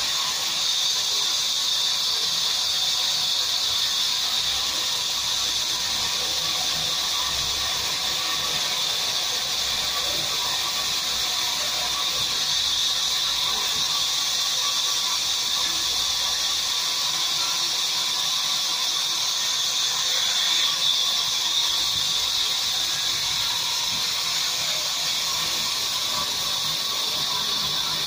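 Sawmill vertical band saw running as timber is fed through its blade: a steady, high-pitched hiss that barely changes.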